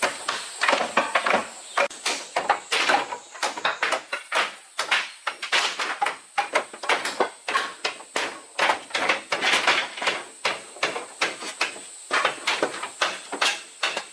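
An irregular run of sharp knocks and clatters, about two to three a second, going on without a break.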